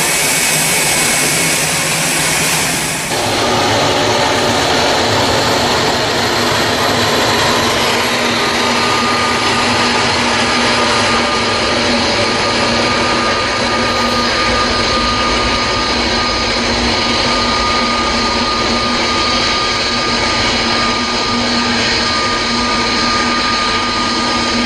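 Twin turbofan engines of an IndiGo Airbus A320-family jet running on the runway: a steady whine with a high tone over a rushing noise. In the first three seconds, before a cut, it is a turboprop airliner climbing away.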